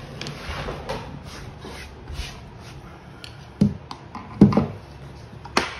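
Claw hammer tapping a flathead screwdriver wedged behind a wooden baseboard, three sharp taps in the second half with the middle one loudest, to pry the baseboard off the wall. Softer handling and scraping noises come before them.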